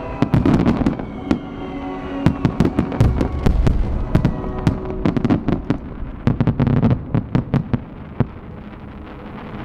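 Firework finale: many aerial shells bursting in rapid succession, a dense run of sharp bangs and crackle for about eight seconds, then thinning out and fading near the end. Music plays underneath.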